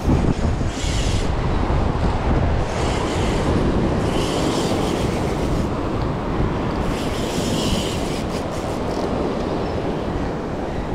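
Surf breaking and washing over a rocky, pebbly shore, with heavy wind rumble on the microphone. Hissing surges come and go every second or two.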